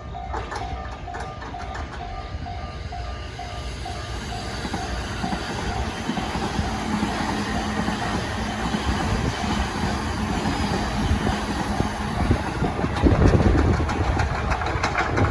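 Japanese level crossing warning bell ringing in a steady, regular beat while a train approaches and passes. The train's rumble builds and is loudest about thirteen seconds in, with a quick run of wheel clacks over the rail joints near the end.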